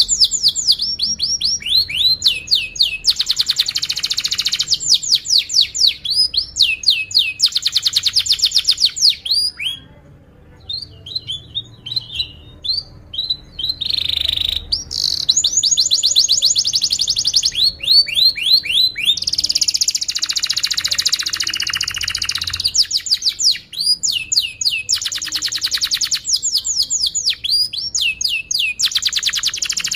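Domestic canary singing a long song of rapid trills: runs of fast-repeated sweeping notes, broken by a short quieter stretch of scattered chirps about a third of the way in.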